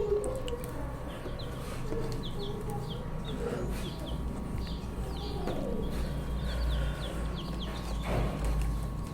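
Young chicks peeping in many short, high, falling cheeps, with a lower wavering call underneath and a faint steady hum.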